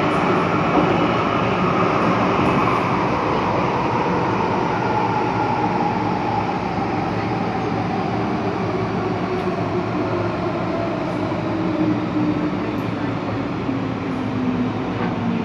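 Inside an MTR M-Train metro car, rail running noise with a whine that falls steadily in pitch as the train slows into a station.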